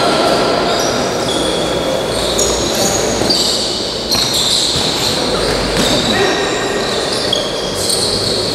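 Futsal being played on an indoor court: many short, high squeaks of shoes on the sports floor and ball kicks, echoing in a large hall.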